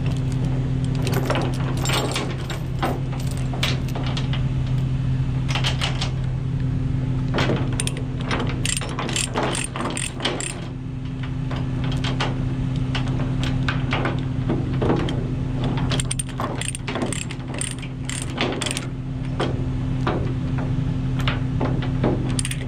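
Steel tie-down chains clinking and rattling against each other and the trailer's wooden deck as they are handled, with irregular clicks of a ratchet chain binder being worked to tension them. A steady low hum runs underneath.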